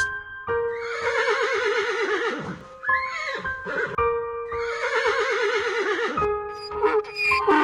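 A horse whinnies twice, each a long, quavering call about two seconds long that falls in pitch, the calls about four seconds apart, over background music.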